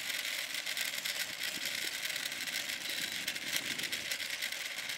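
A steady, high-pitched chorus of insects chirping in the grass, even and unbroken throughout.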